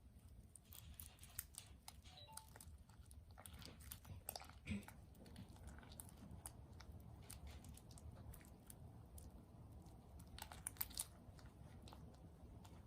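Soft, sticky clicks and crackles of slime being squished and handled, with a few louder pops about a third of the way in and again near the end.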